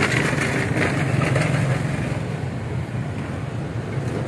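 Motorcycle engine of a sidecar tricycle idling, a steady low hum.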